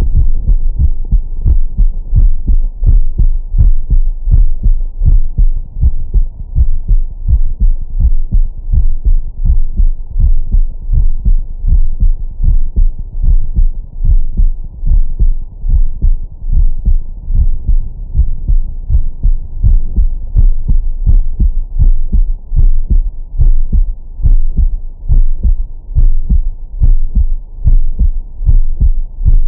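A man's heartbeat picked up by a Stemoscope digital stethoscope on the chest through its 20–1000 Hz filter: steady, regular beats, loud and bass-heavy.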